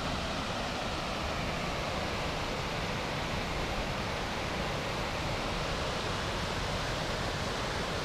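Mountain creek rushing over rock ledges and small cascades: a steady, even noise of running water.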